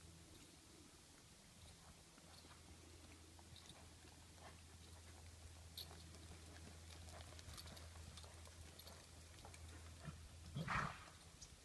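Quiet arena with a steady low hum and faint scattered ticks; near the end, one short, noisy blow from a horse snorting.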